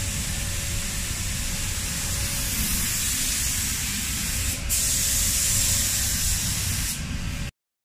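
Compressed-air paint spray gun hissing as it sprays paint, over a steady low rumble. The hiss strengthens a couple of seconds in, breaks briefly twice, and cuts off abruptly near the end.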